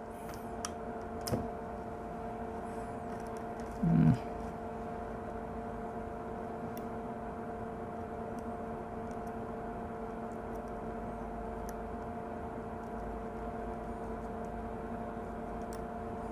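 Steady electric hum, as from a small fan or motor running, with a few light clicks from handling small parts in the first seconds and a brief vocal sound about four seconds in.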